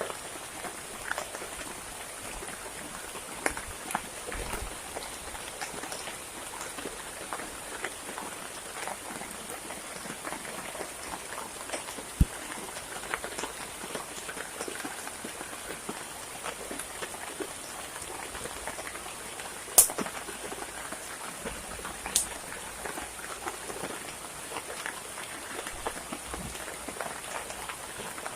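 Heavy rain falling steadily, with many scattered drops ticking close by. A few sharp knocks stand out, the loudest about twenty seconds in and another just after.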